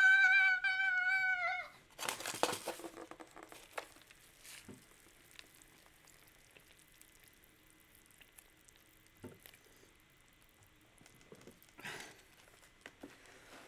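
A woman's high, wavering wordless squeal held for about two seconds, followed by a short crinkling rustle of plastic packaging. Then it is mostly quiet, with a few faint clicks and another brief rustle near the end as the plastic lid of an instant noodle tub is peeled back.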